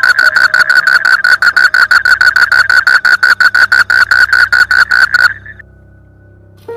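Frog calling: a fast, even rattle of short pulses, about eight a second, that stops abruptly a little over five seconds in.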